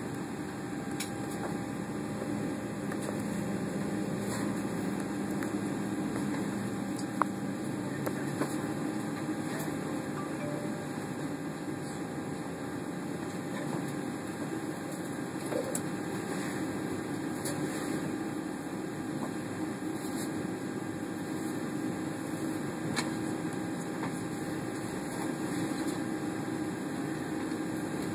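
Steady cabin hum and air rush inside a Boeing 757 airliner as it moves off the gate, with a couple of brief clicks.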